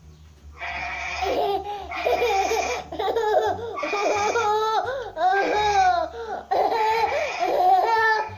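Goat bleating: a run of quavering, wavering bleats repeated one after another.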